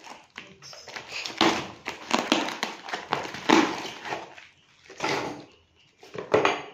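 Cardboard parcel being torn open and handled: several short rustling, scraping bursts of cardboard and packing tape, with brief pauses between them.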